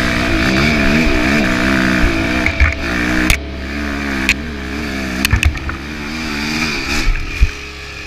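KTM single-cylinder enduro bike engine revving up and down under load on a steep climb, with repeated knocks and clatter from the bike over rough ground. A loud knock about seven seconds in as the bike goes down, after which the engine sound falls away.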